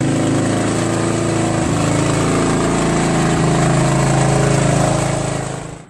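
Small gasoline engine running steadily, then fading out near the end.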